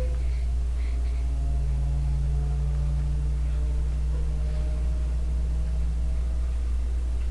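A steady low hum, with fainter steady tones above it and no sudden sounds.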